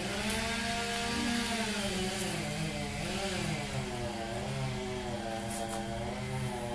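Pole chainsaw's small engine starting up and running, its speed rising and falling unevenly.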